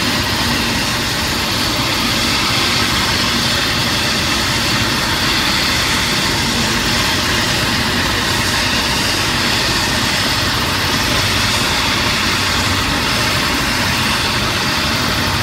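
Helicopter's turbine engine and main rotor running steadily on the ground: an even, loud rush with a high whine that does not change.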